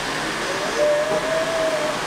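Canister vacuum cleaner running with a steady rushing hiss of suction. A single wavering tone sounds over it from about half a second in until near the end.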